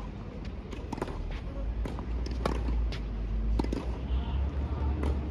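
Tennis rally on a hard court: a string of sharp knocks from racket strikes and ball bounces, over a steady low rumble.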